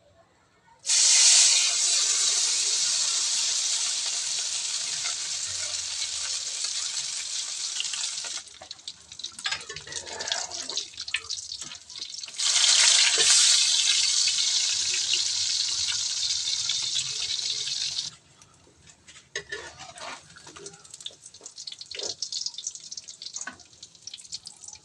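Alamang (tiny shrimp) fritter batter sizzling in hot cooking oil in a frying pan: two long stretches of loud hissing, each starting suddenly as batter goes into the oil and slowly easing before cutting off, with softer spitting and crackling between them and near the end.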